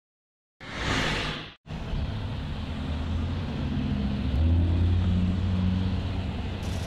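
A short whoosh, then a minibus engine running steadily, swelling louder around the middle as the bus pulls in.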